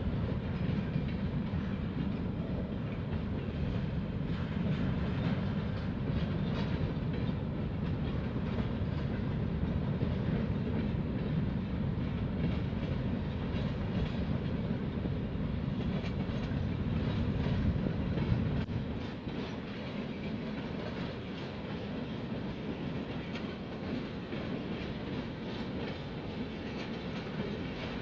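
Railroad tank cars rolling past on the track, wheels clicking over the rail joints over a steady low rumble. The rumble drops off noticeably about two-thirds of the way through.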